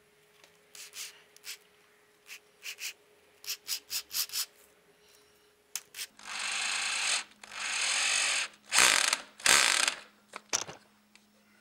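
Light clicks and taps as a wood screw is set into a stainless steel door hinge's screw hole. Then a driver with a Phillips bit turns it in: two steady runs of about a second each, followed by two short, louder bursts as the screw seats in the hinge's countersink.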